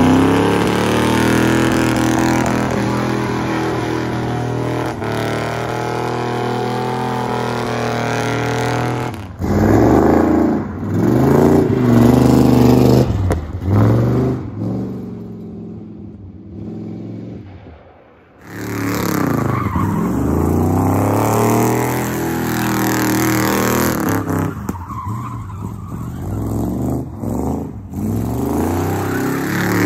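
1971 Dodge Charger's 400 cubic-inch big-block V8 revving hard during burnouts and donuts, its note climbing and falling again and again as the tyres spin on pavement, gravel and dirt. Partway through, the engine fades as the car pulls away down a gravel road, then comes back loud.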